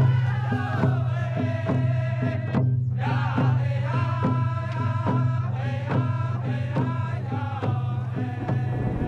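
Background music: a steady low drone under a regular beat of about two strikes a second, with a chant-like melody on top. The upper parts drop out briefly about three seconds in.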